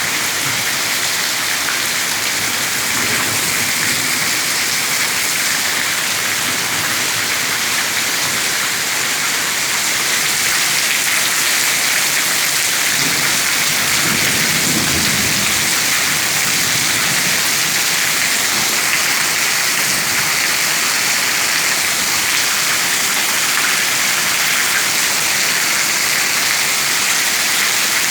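Heavy rain falling steadily in a downpour, getting slightly louder partway through, with a brief low rumble about halfway.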